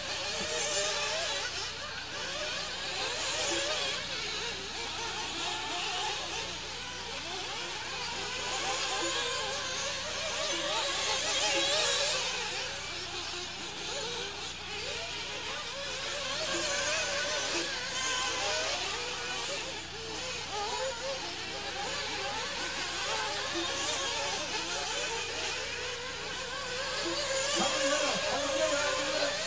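Several nitro RC buggy engines buzzing at high revs as they race, the pitch wavering up and down as they throttle and brake. The sound swells louder as cars pass close, about twelve seconds in and again near the end.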